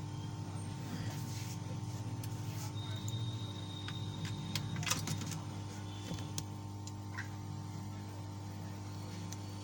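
A few light clicks and knocks as a laptop motherboard is handled and fitted into its base, over a steady electrical hum.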